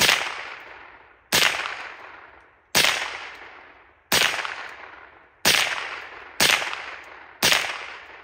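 Seven shots from a Remington Nylon 66 semi-automatic .22 LR rifle firing high-velocity 36-grain hollow points, spaced about one to one and a half seconds apart, each sharp crack trailing off in a long echo.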